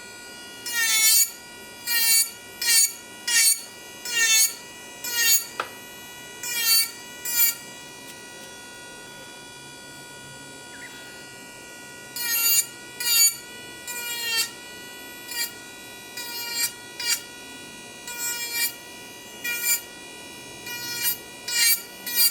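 Kupa ManiPro electric nail drill (e-file) running at full speed with a steady high whine. In about twenty short strokes the bit grinds against the nail and the pitch dips under the load, with a pause of a few seconds in the middle where the drill just spins. It is much louder than a weak 20,000 RPM e-file.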